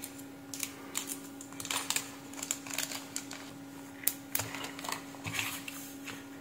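Light, irregular clicks and crinkling as a soldering iron tip is slipped out of its clear plastic sleeve and handled, over a faint steady hum.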